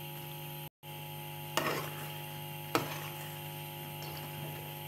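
Steady electrical hum, cut off for an instant about a second in. Over it a spatula knocks and scrapes against the pan twice, then once more faintly, while penne is mixed into a white sauce.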